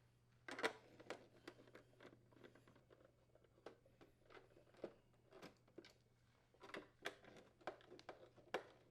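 Faint, scattered clicks and light taps of plastic parts and a driver being handled as a refrigerator dispenser's drip tray is removed and its housing screws are unthreaded. The loudest click comes under a second in, over a faint steady low hum.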